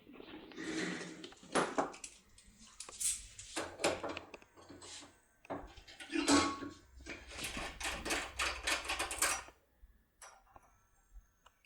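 Small metal clicks, taps and scrapes of a lockpicking decoder and lock being handled. The clicking comes in clusters and stops about three-quarters of the way through, leaving only a few faint ticks.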